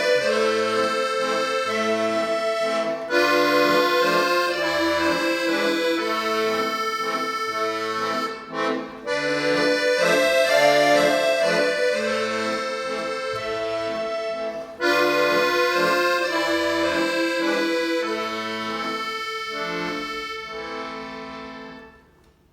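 Accordion playing a slow, lyrical solo melody over bass notes, in phrases with a brief pause near the middle. The piece slows, fades and ends just before the close.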